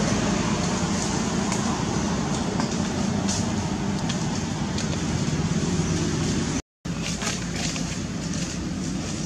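Steady outdoor background rumble and hiss with a few faint clicks; it cuts out for a moment about two-thirds of the way through, then resumes.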